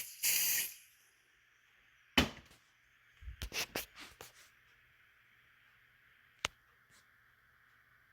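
Short bursts of aerosol test smoke hissing from a can, sprayed at a smoke detector to set it off, followed by a knock, a cluster of soft taps and knocks, and a single sharp click about six and a half seconds in.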